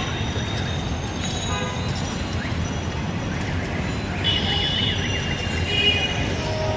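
Steady city traffic rumble beside a railway line, with brief high horn-like toots about four seconds in and again near six seconds.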